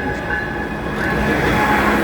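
A train rolling along the rails: a steady rumble and rush of wheels on track that swells slightly about a second in.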